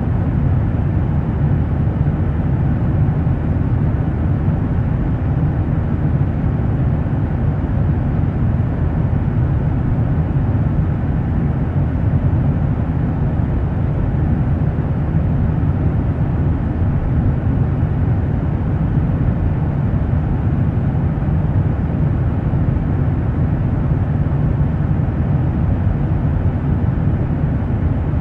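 Steady low rumble of cabin noise inside a commercial airliner at cruising altitude, even and unchanging throughout.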